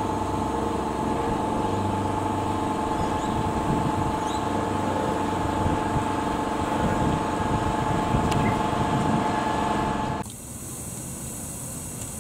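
Steady hiss with a faint high whine from a small steam locomotive being lit up and raising steam. The sound cuts to a quieter background about ten seconds in.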